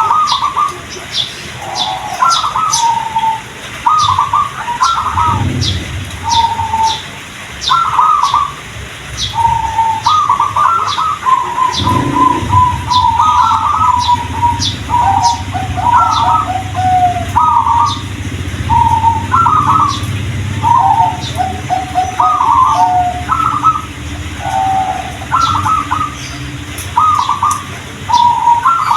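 Zebra dove (perkutut) cooing over and over, each phrase a quick run of stuttering notes ending on a held coo. A series of short, high chirps runs alongside, and a low hum sets in about halfway through.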